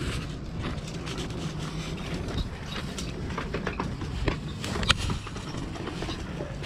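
Steady low rumble of wind on the microphone, with scattered clicks and rustles as fish and a plastic bag are handled.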